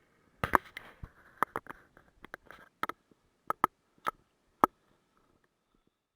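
About a dozen sharp knocks and clicks of hard objects, irregularly spaced and some in quick pairs, with a little scraping between them over the first few seconds; then it goes quiet.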